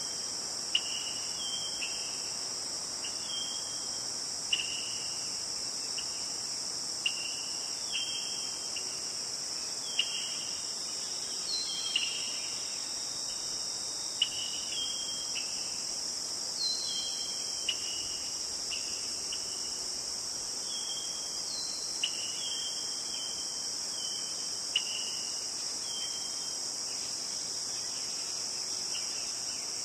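Steady high-pitched insect chorus, over which short chirping notes repeat every half second to a second. A sharp tick sounds every two to three seconds.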